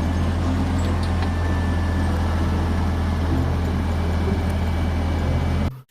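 Steady low motor hum with a constant rushing hiss, cut off abruptly near the end.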